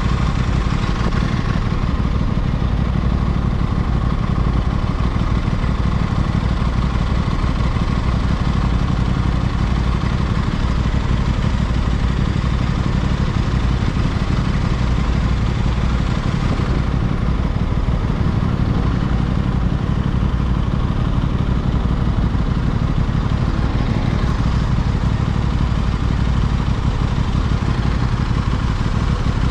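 Aprilia RS660's parallel-twin engine and exhaust running at a fairly steady pace while riding, with only small shifts in pitch and load.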